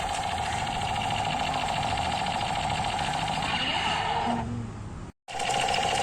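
Battery-operated toy machine gun playing its electronic firing sound: a fast, steady buzzing rattle. It stops about four and a half seconds in and starts up again near the end.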